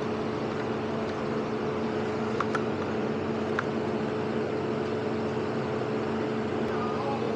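A steady mechanical hum, a machine running at an even speed with two fixed tones and no change in pitch or level.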